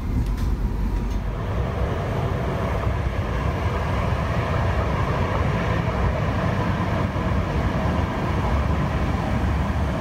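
Alstom Citadis Dualis tram-train running through a station: a steady rumble and rolling noise of steel wheels on rail.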